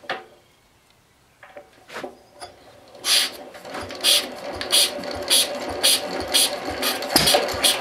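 Lister D single-cylinder stationary engine being hand-cranked with a few knocks, then catching about three seconds in and running, with a rhythmic clatter repeating nearly twice a second as it gets going.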